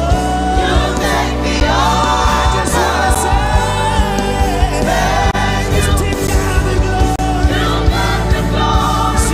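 Live gospel music: a choir singing with a band and a steady drum beat.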